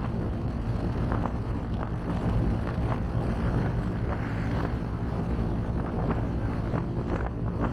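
Car driving along a road: steady engine and tyre rumble with wind noise, and irregular light knocks from the road surface or cabin rattles.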